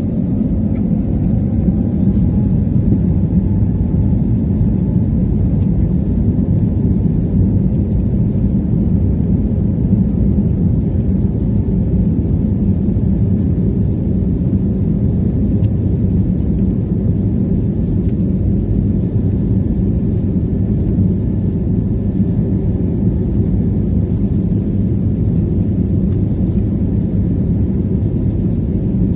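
Cabin noise of an Airbus narrowbody airliner on the ground: a steady, loud low rumble of the jet engines and airframe heard inside the cabin, holding level without spooling up.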